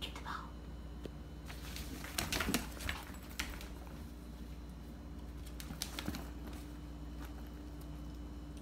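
A Yorkshire terrier puppy moving about and playing on a tile floor: a few light clicks and scuffs, busiest around two to three seconds in, over a faint steady hum.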